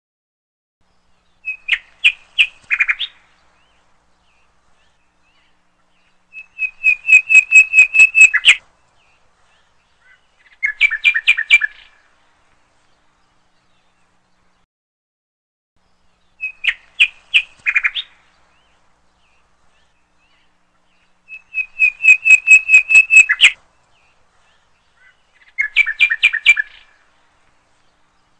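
Birdsong: short phrases of rapid, high chirps. A set of three phrases plays, then the same three come again identically, with dead silence in between.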